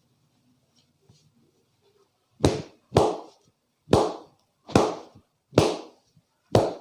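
Six loud, sharp hand slaps struck during an Indian head massage, each with a brief ringing tail. The first two come quickly together about two seconds in, then the rest follow at roughly one a second.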